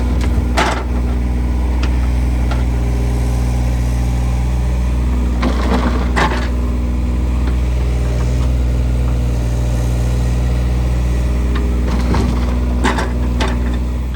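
A large engine, most likely on the earthmoving machinery working the shelter site, running steadily at one speed, with a few metallic clanks and knocks over it; it cuts off abruptly at the end.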